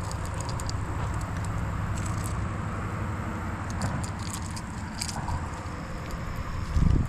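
Steady low rumble with scattered small crackles and clicks, and a louder low thump just before the end.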